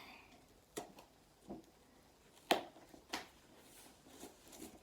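A package being handled while it is being opened: four or five short sharp clicks and knocks spaced about half a second to a second apart.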